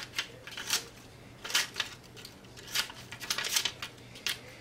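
Scissors snipping through a floppy disk's thin magnetic media disc: a run of short, sharp snips at uneven spacing.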